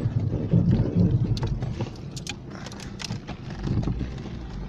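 An Alfa Romeo car driving over a snow-covered road, heard from inside the cabin: a low engine and tyre rumble, heavier in the first two seconds and then easing off, with scattered light clicks and rattles.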